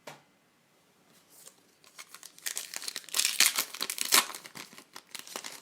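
Trading card pack wrapper crinkling and tearing as the pack is torn open, in a dense run of crackles that builds from about two seconds in and peaks around the middle.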